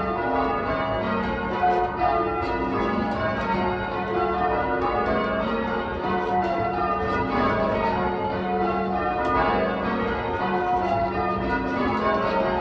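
A ring of eight church bells (14 cwt tenor in F sharp, mostly cast by Taylor's) rung full-circle in call changes. The bells strike one after another in a steady, unbroken rhythm, each row following the last.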